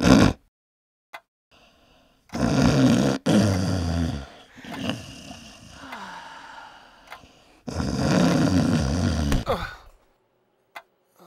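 A man snoring heavily in long, loud breaths: two big snores a few seconds apart, the first about two seconds in and the second about eight seconds in.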